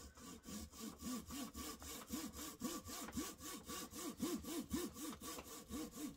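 Coping saw cutting into a balsa-wood crankbait body, sawing the angled slot for the lip: quick, even back-and-forth strokes at about four to five a second, each rising and falling in pitch.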